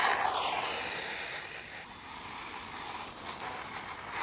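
HPI WR8 Flux electric RC rally car passing close on gravel, its brushless motor whining and its tyres spraying gravel. The pitch falls as it goes by at the start, then the sound fades as the car drives away.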